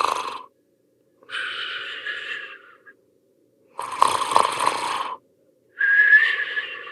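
Snoring in two rounds: each round is a rasping snore in, then a breath out carrying a thin whistle.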